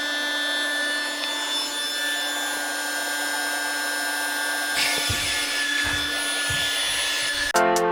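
Small quadcopter drone hovering, its propellers giving a steady many-toned whine. A few low thumps come about five to seven seconds in, and music starts near the end.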